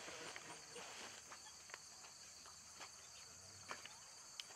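Faint, steady, high-pitched chorus of insects, with a few faint scattered clicks.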